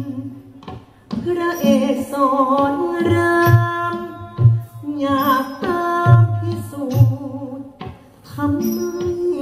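Thai likay singing: one voice holding long, wavering notes, sung into a headset microphone over a musical accompaniment with a low repeated beat. The singing drops away briefly about a second in and again near the end.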